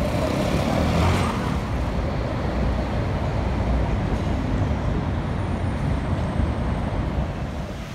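Steady city street traffic noise: motor vehicles running and passing, with a slight swell about a second in.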